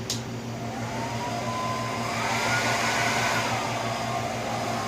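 Handheld blow dryer running with a steady rush of air. Its motor whine climbs in pitch from about half a second in, rises further around two seconds, then settles slightly lower near the end.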